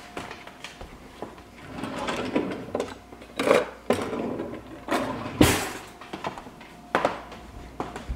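A kitchen cutlery drawer is opened and utensils clatter in the tray as a pair of kitchen shears is taken out. The drawer is then pushed shut with a knock, the loudest sound, about five seconds in. Scattered lighter clicks and knocks come before and after.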